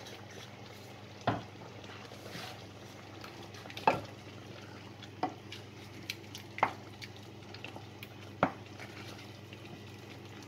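A wooden spoon stirring butter chicken curry in a large stainless steel pot, knocking against the pot about five times, over the steady sound of the curry bubbling on a high heat.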